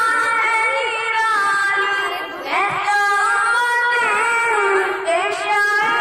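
A young male voice singing solo into a handheld microphone, with long held notes and slides between them, carried over loudspeakers.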